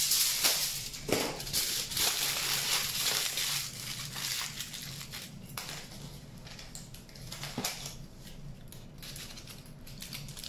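Sheet of aluminium foil being crumpled and scrunched by hand, loudest in the first few seconds and then fainter crinkling with a few sharp crackles: foil being packed around a wire armature to bulk it out.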